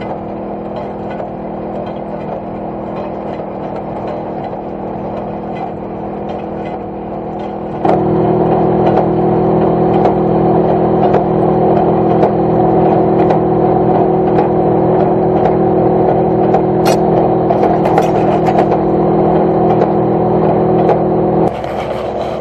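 Ford small square baler running in the field: its mounted engine drones steadily while the pickup and plunger clatter as it takes in and bales hay. The sound jumps louder about eight seconds in and drops back just before the end.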